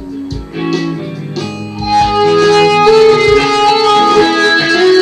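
Electric guitar playing a melodic lead line of held, ringing notes, which gets louder about two seconds in.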